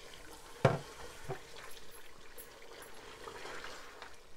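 A spatula stirring mutton korma in an aluminium pot: a sharp knock against the pot under a second in and a lighter one soon after, over the gravy simmering on low heat.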